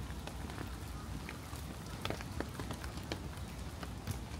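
Steady rain falling, with scattered, irregular ticks of single drops landing close by.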